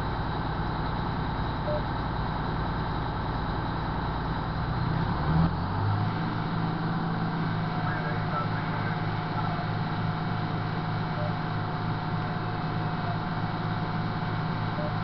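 Fire truck engine idling steadily, heard from inside the cab. About five seconds in it speeds up and settles at a higher, steady speed.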